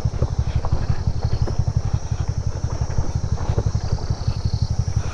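TVS NTORQ 125 scooter's single-cylinder engine running at low speed with a rapid, even low pulsing, over a steady high drone of insects.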